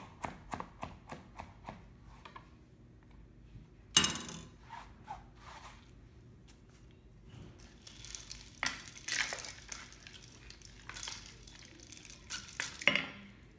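Cabbage being sliced on a mandoline: quick, even strokes across the blade, about four a second, for the first couple of seconds, then a single sharp knock about four seconds in. In the second half comes the rustle and scrape of shredded cabbage being handled into a stainless steel mixing bowl.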